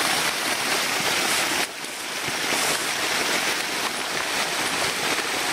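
Waterfall rushing close by in a steady roar of falling water, dropping slightly in level and changing character about a second and a half in.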